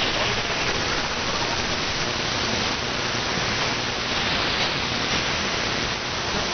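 Steady hiss of AM radio static, heard through a web SDR receiver tuned between stations on the medium-wave band.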